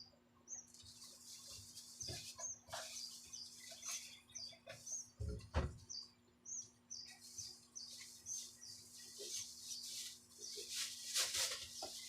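A small bird chirping repeatedly, short high chirps about two a second, over a faint steady low hum, with a single low thump about five and a half seconds in.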